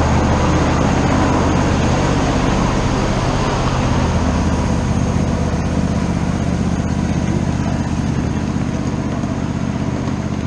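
An engine running steadily with a low hum, easing off slightly over the seconds.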